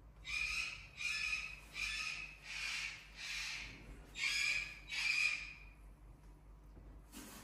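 An animal giving seven short, harsh, squawk-like calls in a steady series, about one every three-quarters of a second, then stopping.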